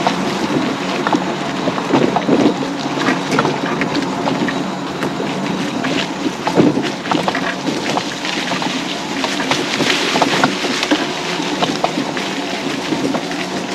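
Electric mobility scooter running along a rough off-road trail: a steady motor whine with frequent clicks and clatter as it rolls over bumps.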